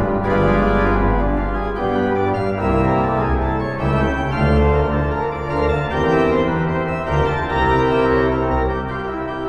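Church organ playing slow, sustained chords, full and steady, with the harmony shifting every second or so.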